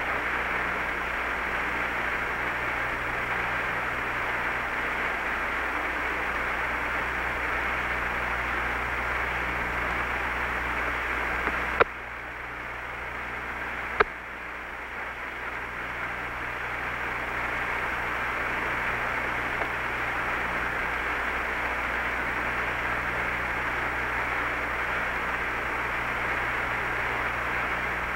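Steady hiss and low hum of the Apollo 11 air-to-ground radio channel, open with nobody transmitting. A little before halfway come two sharp clicks about two seconds apart; after each the hiss drops and then slowly builds back.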